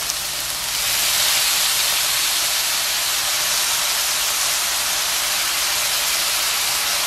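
Diced tofu, chili flakes and oil sizzling in a wok over medium heat: a steady frying hiss that gets louder about a second in.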